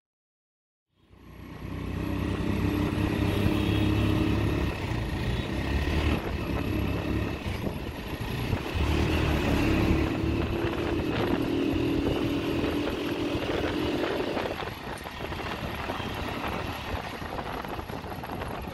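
Road traffic heard from a moving vehicle: a steady drone of engines from CNG auto-rickshaws and cars, with an engine hum that swells and fades. The sound fades in about a second in.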